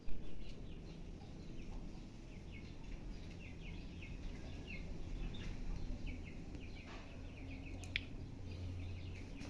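Small birds chirping, with short high calls repeated many times, over a low steady background rumble.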